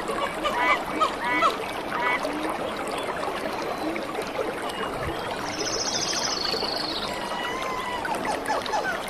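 Steady rush of flowing stream water. Repeated chirping calls come about twice a second for the first two seconds, and a rapid high trill sounds about six seconds in.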